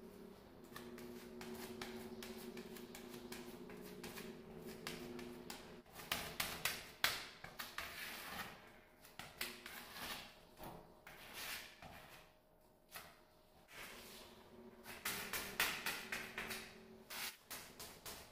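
Metal putty knife scraping and tapping along the edge of a granite countertop as dark filler is spread and smoothed: an irregular run of short scrapes and clicks. A faint low hum sits under the first few seconds and comes back near the end.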